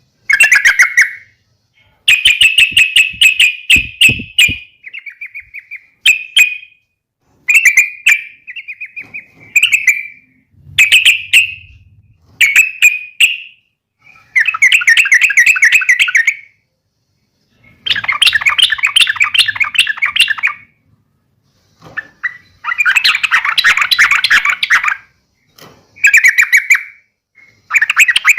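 Yellow-vented bulbul (trucuk) giving repeated bursts of rapid, bubbly chattering calls with short pauses between them. These are the agitated 'fighting' calls of a trucuk uplik, used to provoke other trucuk into answering.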